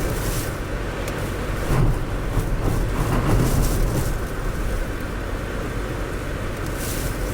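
Blizzard wind gusting hard against the microphone: a loud, steady low rumble with rushing hiss that swells briefly a few times.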